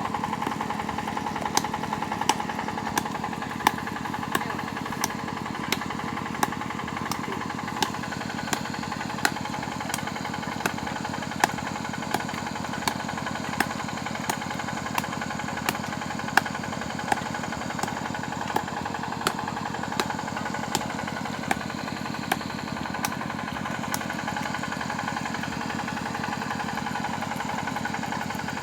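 Engine-driven drilling machine running steadily, with a sharp knock repeating about every 0.7 seconds.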